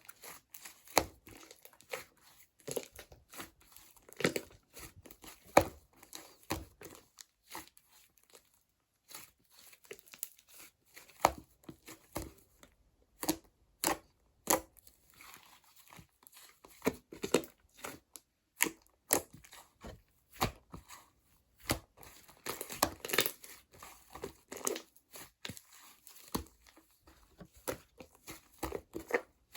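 Slime being squished and stretched by hand, giving irregular sticky pops and crackles with brief pauses.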